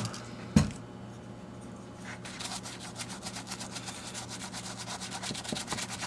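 A knock about half a second in, then a soft horsehair brush scrubbing a leather shift boot lathered with cleaner, in quick short strokes from about two seconds in.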